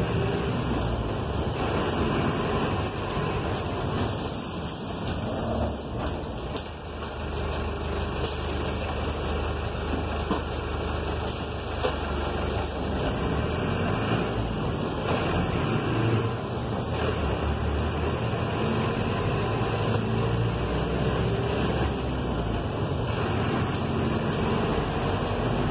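City bus driving on a wet street, heard from inside the cab: engine running with road and tyre noise.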